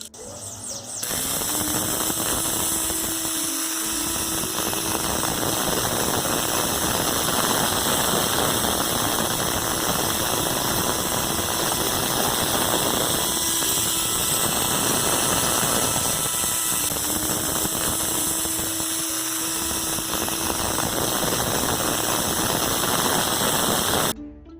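Kärcher K 2.88 electric pressure washer running, a loud steady noise of motor and pump that starts about a second in and cuts off just before the end. A low hum rises and drops out a few times along the way.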